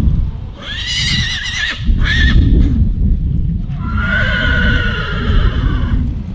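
A horse whinnies three times, with a wavering first call, a short second and a long third call that slowly falls in pitch, over hoofbeats thudding in arena sand.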